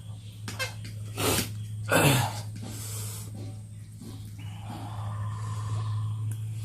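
People eating very spicy noodles, breathing hard and sharply through the nose and mouth from the burn. The loudest huff comes about two seconds in, and a high-pitched held whimper or hum follows near the end, over a steady low electrical hum.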